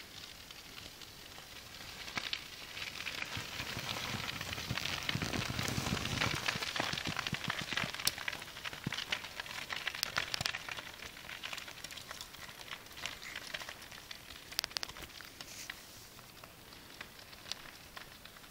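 Mountain bike tyres crunching and crackling through snow as a group of riders passes close by. The sound builds over the first few seconds, is loudest in the middle, then fades as the riders pull away.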